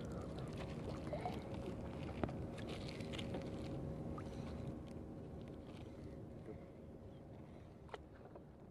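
Water lapping against a small wooden outrigger canoe on a calm sea, with scattered light knocks and a faint steady hum; the sound slowly fades over the last few seconds.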